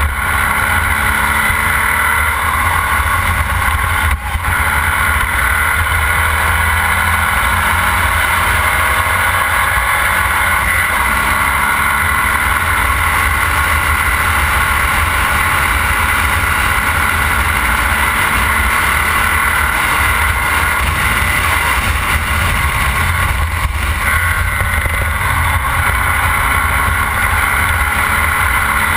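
Formula Vee race car's air-cooled Volkswagen flat-four engine running hard at racing speed, heard from on board the car, with a deep rumble under it. The sound drops briefly about four seconds in.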